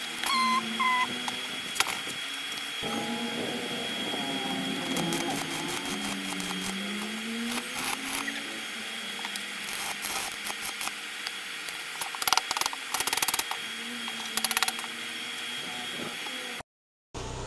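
Washing-machine motor driving a homemade coconut grater, running with a steady high whine, with several short loud bursts of noise about twelve to fifteen seconds in. It cuts off suddenly near the end.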